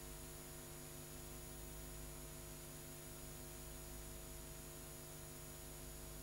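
Faint, steady electrical hum with a stack of overtones under an even hiss, the background noise of a blank stretch of old videotape.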